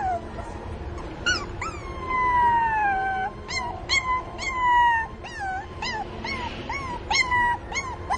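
Puppies whimpering and crying in a run of short, high-pitched yelps, with one long drawn-out cry about two seconds in that slides down in pitch. They are crying for their mother.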